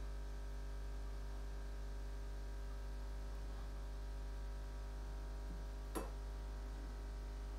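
Steady electrical mains hum, with one short sharp click about six seconds in.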